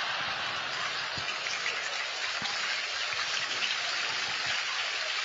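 Audience applauding after a punchline: a steady wash of many hand claps with no let-up.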